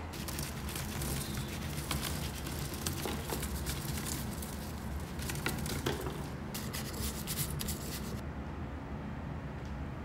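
Faint crackling and paper rustling from hot, freshly rendered pork back fat pieces draining on paper towels as they are tipped out of a wire strainer, over a low steady hum. The crackling dies away near the end.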